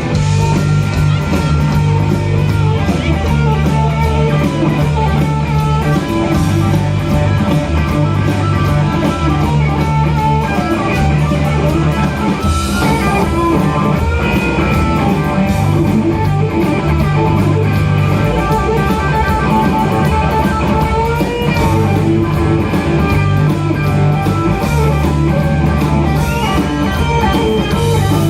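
Rock band playing an instrumental stretch of a song: guitar and drum kit, without singing.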